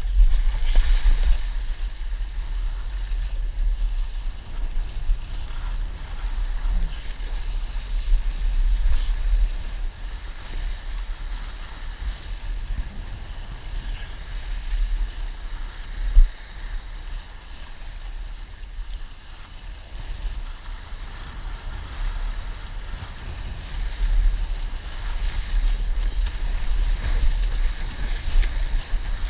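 Wind buffeting the microphone of a camera mounted on a windsurf rig, as a steady deep rumble, with water rushing and hissing under the board as it sails across choppy sea. One sharp thump stands out about sixteen seconds in.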